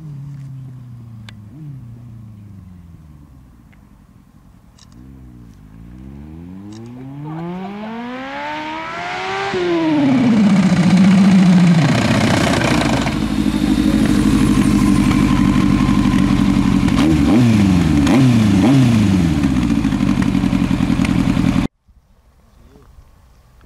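Yamaha inline-four sportbike accelerating toward the microphone, its engine note rising in steps through the gear changes, then falling as it slows and pulls up close. It then runs loudly at near idle with two quick throttle blips, until the sound cuts off abruptly near the end.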